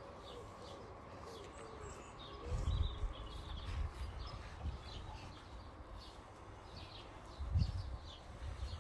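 Garden birds chirping, with a pigeon cooing at the start. Low, muffled rumbles come twice, about three seconds in and near the end.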